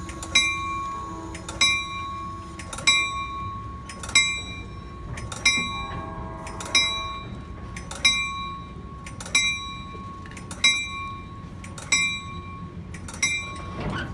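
Amtrak train's locomotive bell ringing at an even pace, one strike about every 1.3 seconds, over the low rumble of the slowly moving diesel train.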